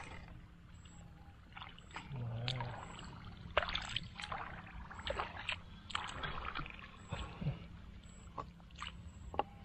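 Hands splashing and sloshing in shallow water: a run of short, irregular splashes and drips.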